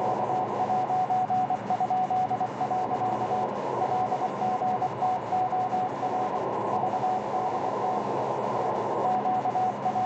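Morse code (CW) signal on 6825 kHz from a shortwave receiver: a single steady tone keyed on and off in dots and dashes over band hiss that is cut off sharply above about 1 kHz. The station is unidentified, and the listener thinks it could be a number station.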